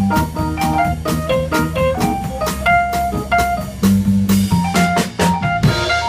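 Small jazz group playing live: keyboard melody over a sustained bass line, with a drum kit keeping a steady beat.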